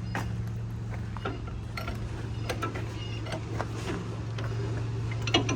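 Scattered light metallic clicks and knocks of tools and parts being handled while a tractor piston is reassembled with new seals, over a steady low hum. A sharper double knock comes near the end.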